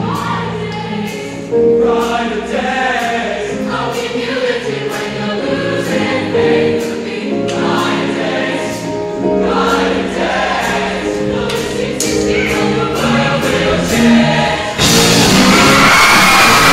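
Show choir singing in full harmony with accompaniment, holding long chords over percussive hits. About 15 seconds in the song ends and the audience bursts into loud cheering and applause.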